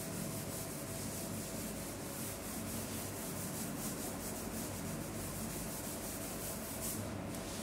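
Chalk duster wiping a chalkboard: a steady rubbing in repeated strokes that stops near the end.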